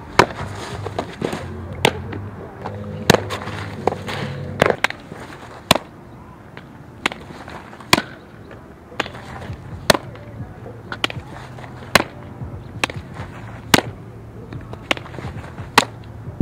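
Softballs smacking into a catcher's leather mitt, one sharp pop about every second as pitches are caught.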